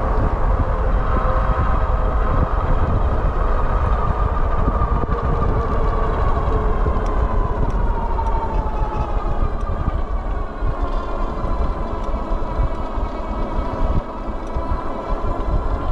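Whine of the twin 1,000-watt hub motors on a Wallke H9 all-wheel-drive e-bike under way, its pitch sinking slowly about halfway through as the bike slows, then holding steady. Underneath runs a steady low rumble.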